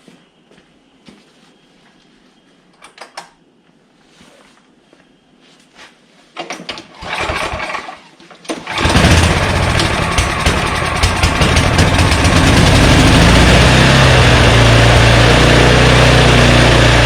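Troy-Bilt Storm snow blower's engine being started after sitting unused since last season. A few light handling clicks come first, then a short burst of cranking about six and a half seconds in. A couple of seconds later the engine catches and runs loud and steady.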